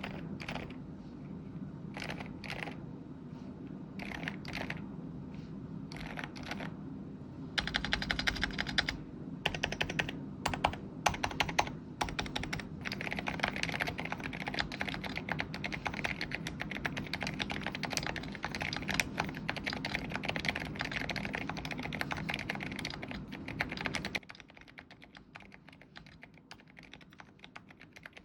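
Typing on a full-aluminium Hertz 87 mechanical keyboard with HMX Jelly Banana silent linear switches on an FR4 plate. A few separate keystrokes give way, about seven seconds in, to fast continuous typing, which turns quieter near the end.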